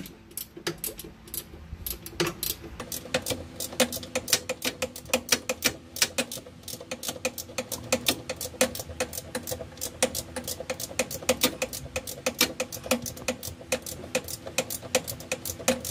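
Ratcheting wrench clicking in quick, uneven runs as it is swung back and forth, backing a rear shock absorber mounting bolt out.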